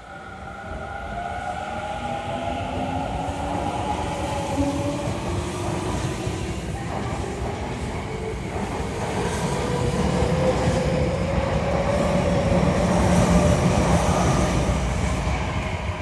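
Tokyo Metro 10000 series electric train accelerating away from a standstill. Its Mitsubishi IGBT-VVVF inverter gives a whine in several tones that climb steadily in pitch, under running noise from the wheels and rails that grows louder as the cars pass.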